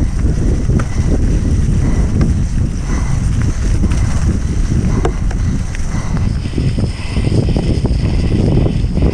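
Heavy wind rumble on the microphone of a mountain bike riding fast downhill, with scattered sharp knocks and rattles from the bike over rough ground.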